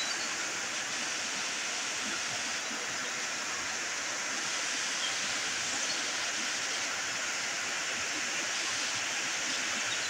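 Steady rush of a tall waterfall, water falling continuously down a cliff face into a rocky pool.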